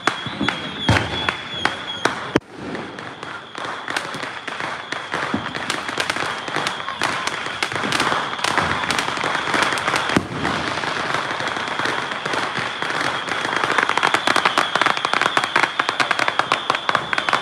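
Many fireworks and firecrackers going off: a rapid, continuous run of cracks and pops, with one sharp bang about two and a half seconds in, over a thin steady high whistle.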